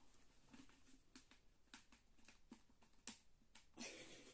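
Faint scattered clicks and taps of small plastic figurine parts being handled and pushed together, with one sharper click about three seconds in.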